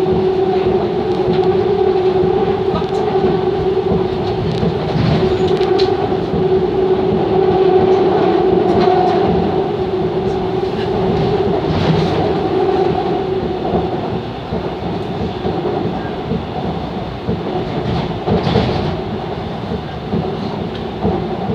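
Seoul Subway Line 2 train running at speed, heard from inside the passenger car: steady running noise with a held hum that fades about two-thirds of the way through, and occasional short clicks.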